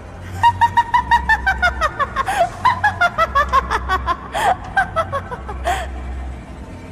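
A shrill, high-pitched cackling laugh: a rapid run of short 'ha' bursts, about five a second, that slowly falls in pitch and trails off before the end. A low drone runs underneath.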